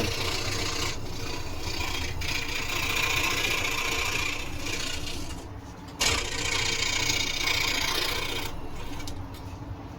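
Scroll saw cutting wood: a steady rasp from the reciprocating blade, which drops away briefly about five and a half seconds in, comes back suddenly at six, and thins out near the end.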